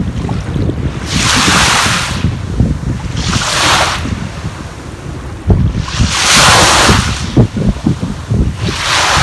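Sea waves washing in on the shore, four surges of hiss a couple of seconds apart, with wind buffeting the microphone throughout.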